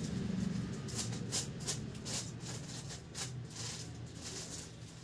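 Shiny sequin-embroidered lehenga fabric rustling as it is handled and shifted, a string of soft irregular crinkles over a low steady hum.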